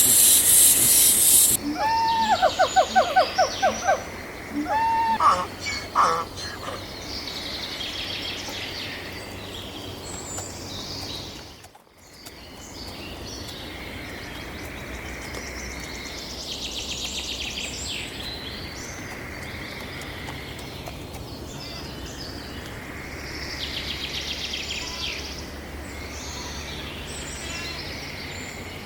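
Farmyard poultry calling: a loud hiss in the first second and a half, then a quick run of pulsed calls about two seconds in and another near five seconds. After a brief break near twelve seconds, scattered chirps and raspy calls go on over steady outdoor background noise.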